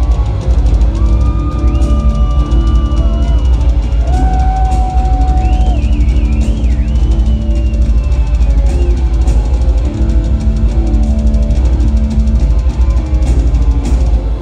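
Live heavy metal band over a concert PA: distorted lead electric guitar holding long notes with bends and vibrato over fast, pounding drums and bass.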